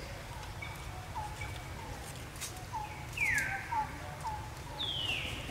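Birds calling: short chirps repeated about twice a second, with two louder falling calls, one a little past three seconds and one near the end, over a steady low rumble.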